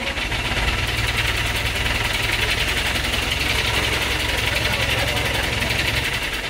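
Crane's engine running under load while it holds and moves a suspended paper-cutting machine; the low rumble picks up about half a second in and eases near the end.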